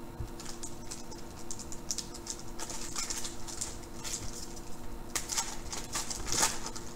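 Foil wrapper of a 2013 Prizm baseball card pack crinkling and tearing as it is ripped open by hand, a run of crackly rustles that are loudest near the end.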